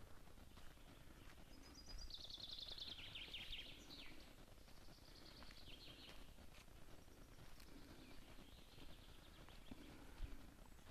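Faint songbird song: a fast trill that falls in pitch, heard three times, the first the loudest, over a light outdoor background hiss.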